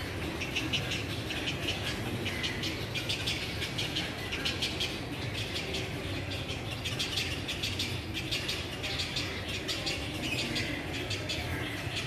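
A nesting colony of black-crowned night herons calling from a tree: a dense, rapid chatter of squawks and clicks that keeps on without a break, over a steady low hum.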